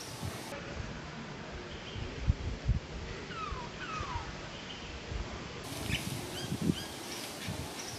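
Two quick falling chirps about three and a half seconds in, with a few shorter high chirps, over a steady outdoor background with a few brief low thumps.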